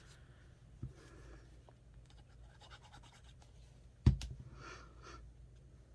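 Quiet handling of paper on a desk while gluing pieces down, with soft scratchy rubbing, a small click just under a second in and one sharp knock about four seconds in as something is set down.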